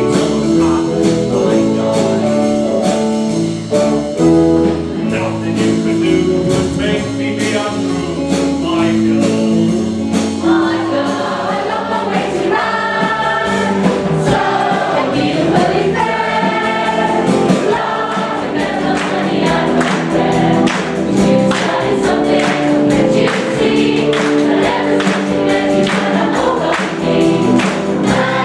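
A group of voices singing together over a backing track with a steady beat; the singing grows fuller and higher about ten seconds in.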